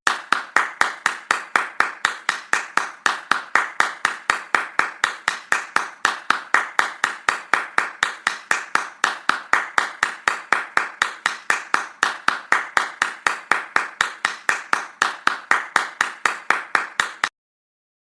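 One person clapping hands at a steady, even pace, about four to five claps a second, stopping abruptly near the end.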